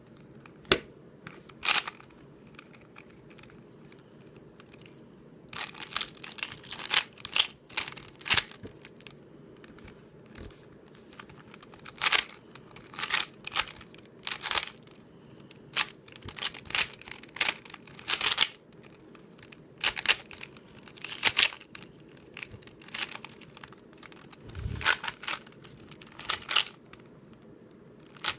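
YJ Sulong 3x3 speed cube being turned fast by hand, its plastic layers clicking and clacking. A couple of single clicks come first, then from about five seconds in the turns come in quick irregular runs with short pauses between them.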